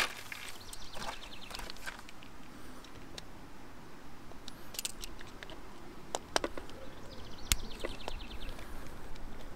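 Small metallic clicks and taps of a screwdriver working the jets of an open Mikuni carburettor, with two short runs of rapid ticking, one about a second in and one near the end.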